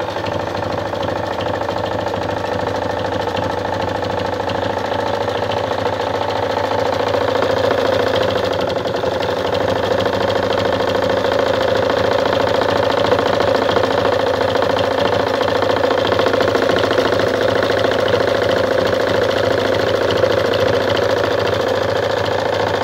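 Vintage Anker RZ sewing machine running steadily at speed, sewing a close zigzag stitch, a fast continuous chatter of the needle and feed that grows a little louder about a third of the way in.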